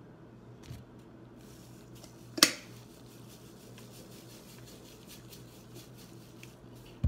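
Salt being poured from a cardboard salt canister through a plastic-bottle funnel into a balloon: a single sharp knock about two and a half seconds in, then faint scattered ticks and rustles as the grains run through.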